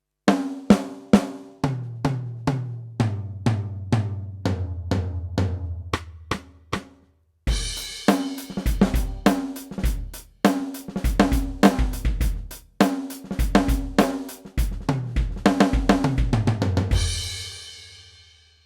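Yamaha DTX720K electronic drum kit played through its DTX700-series module: a run of snare and tom hits with the toms stepping down in pitch, then a kick, snare and hi-hat groove with short breaks, ending on a crash cymbal left to ring out and fade.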